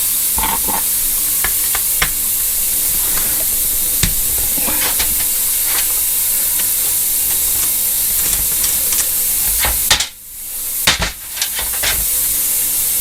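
Ultrasonic parts cleaner running with a steady sizzling hiss as carburettor jets and small parts are cleaned. The hiss stops for a moment about ten seconds in and then resumes, with a few light knocks of parts being handled.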